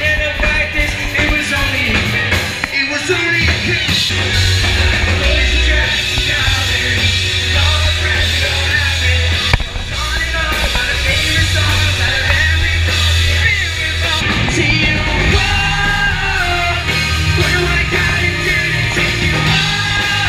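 Live rock band playing loud, close to the stage: electric guitars, bass and drums under a singer's vocals into a microphone.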